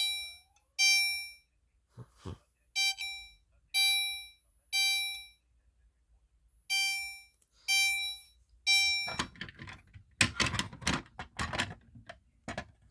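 Gentex Commander 3 fire-alarm signal set to chime, sounding ringing chimes three at a time, about a second apart, with a pause of about two seconds between groups: the temporal-three evacuation pattern. After the last chime a run of irregular knocks and rattles follows.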